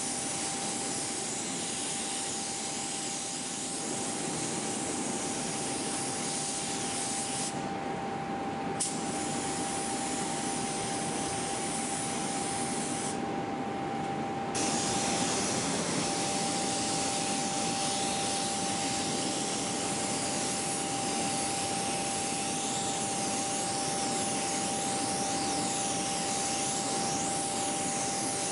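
Compressed-air paint spray gun hissing steadily as paint goes on. The hiss drops away twice for a second or so, and a thin steady whine runs underneath.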